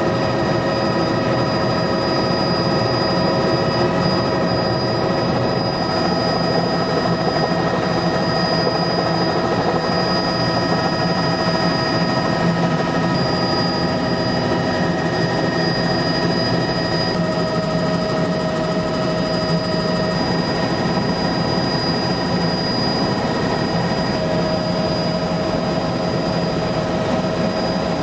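Small helicopter's engine and rotor heard from inside the cockpit, running steadily through take-off and climb-out, with several steady whining tones over the rotor noise.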